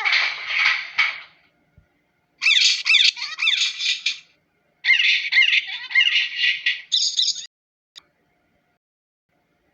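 Birds squawking and chattering in three harsh bursts of rapid, downward-sweeping calls, falling silent about two seconds before the end.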